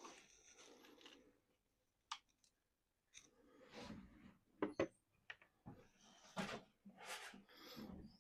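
Small RC truck parts and tools being handled on a work surface: scattered light clicks and short rustling scrapes, with two sharp clicks about halfway through.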